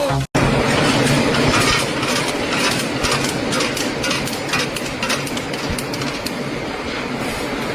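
Steady mechanical rumble and clatter, with irregular knocks over a continuous noisy din. It begins abruptly just after a brief silence.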